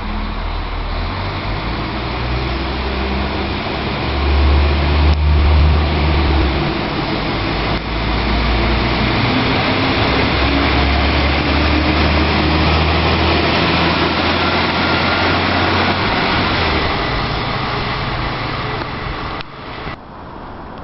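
SA135 diesel railcar pulling out and accelerating past. The engine's low rumble changes pitch in steps and is loudest a few seconds in, followed by the rushing of wheels on rail as the railcar passes. The sound fades away near the end.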